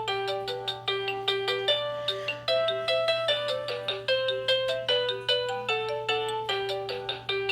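VTech electronic baby toy playing a simple beeping tune through its small speaker: quick, bright single notes, several a second, over a steady low hum.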